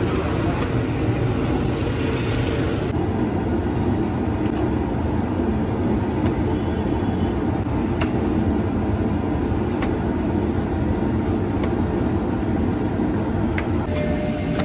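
Steady low rumble of street traffic, with a brighter hiss over the first three seconds and a few faint clicks later on.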